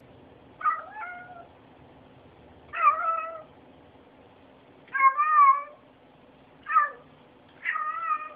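A domestic cat meowing five times, each meow short and spaced a second or two apart.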